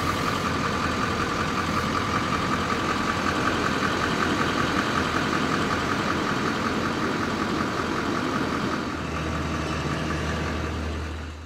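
An engine idling steadily with a fine, regular clatter. About nine seconds in it turns duller, with a stronger low hum.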